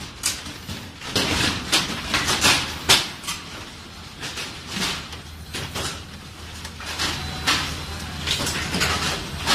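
Shoe-factory production line: irregular sharp metallic clanks and knocks from the metal molds and machinery, over a low machine hum that grows stronger about seven seconds in.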